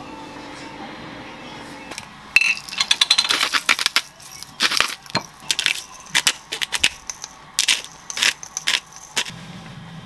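Wooden chopsticks stirring in a glass mixing bowl, clacking and tapping against the glass in a fast, irregular run of clicks as chopped tomato is mixed into egg and avocado. The clicking starts about two seconds in and stops shortly before the end.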